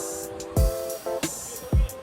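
Background music: short repeated chords over a deep kick drum beat, with two kicks about a second apart.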